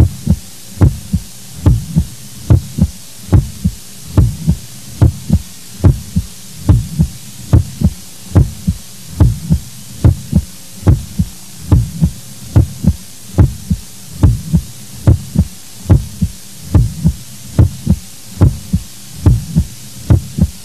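Steady heartbeat sound effect: a double low thump, lub-dub, repeating evenly about once a second.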